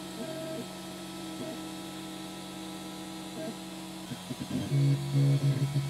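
The stepper motors of a Prusa i3-style 3D printer hum at steady pitches that switch as the print head moves through each line of an ABS first layer. The hum gets louder about three-quarters of the way through.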